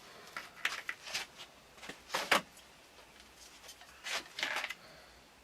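Thin kydex plastic sheet being cut into small pieces by hand: a series of short, crisp cutting strokes in three bursts, about a second and then two seconds apart.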